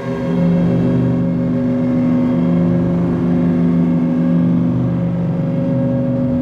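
Soma Laboratories Lyra-8 analog drone synthesizer sounding several sustained, overlapping tones with a rough, buzzing low end. A new low drone note comes in just after the start.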